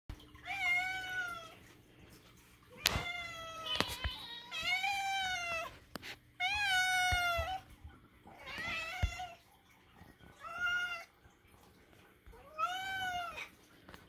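Domestic cats meowing for their dinner: about seven long, drawn-out meows, each rising and falling in pitch, with short pauses between them. A sharp knock sounds about three seconds in.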